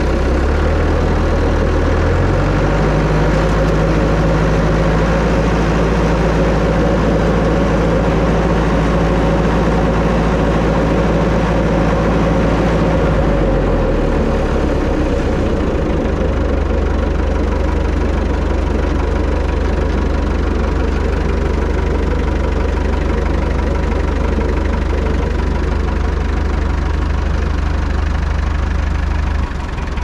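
Tractor engine running with the rear PTO-driven snowblower spinning. The engine revs up about two seconds in, drops back about halfway through, then runs steady.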